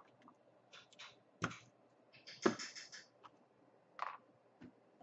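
Handling noise from a spool of solder wire being pulled from and set down on a workbench: a string of short clicks and rustles, loudest about two and a half seconds in.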